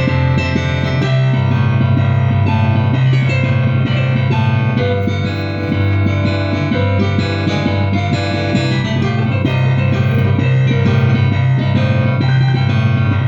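Barrel organ playing a tune: sustained notes and chords over a steady bass.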